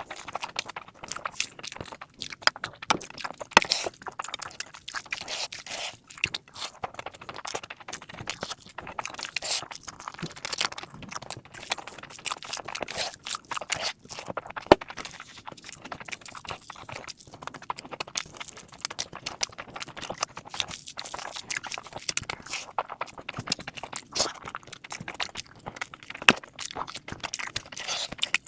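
Close-miked chewing of mutton fat curry and rice: dense, irregular wet smacks and clicks of eating, continuing without a break.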